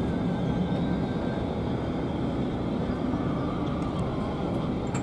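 Steady rumble of a passenger railway carriage running along the track, heard from inside the coach.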